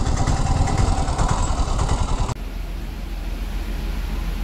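Yamaha R15 sport motorcycle's engine running at low speed with wind noise. About two seconds in it cuts off suddenly to a quieter steady low drone from a houseboat under way, with wind on the microphone.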